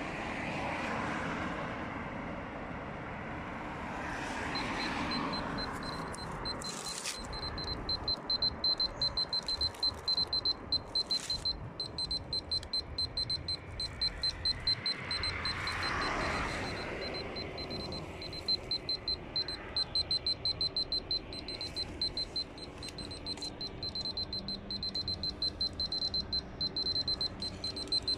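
Polimaster handheld radiation meter sounding a rapid run of high-pitched beeps, about two or three a second, after a steady tone sets in a few seconds in. The beeping is its audible count signal while it is held close to caesium-contaminated soil. Passing traffic swells in the background at the start and again midway.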